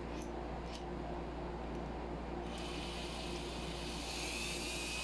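Two light clicks as parts of a cordless drill are handled. About halfway in, a steady faint high hiss with a thin whine starts and keeps going.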